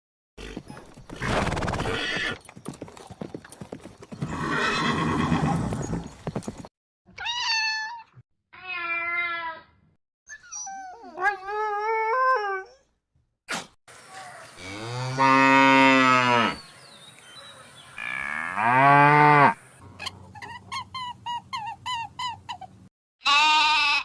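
A string of separate farm-animal calls cut one after another: geese calling at the start, then several wavering pitched calls and two long low calls, ending in a short lamb bleat.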